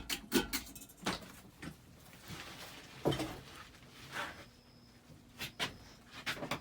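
Harbor Breeze Calera ceiling fan just switched to low speed, with irregular clicks and knocks scattered throughout and a faint steady hum and thin high whine coming in during the second half.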